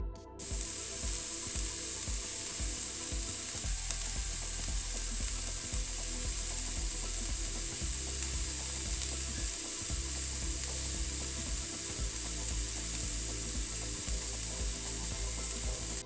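Crumbled tofu and diced tomato sizzling in a stainless steel frying pan: a steady frying hiss that starts about half a second in. Soft background music plays underneath.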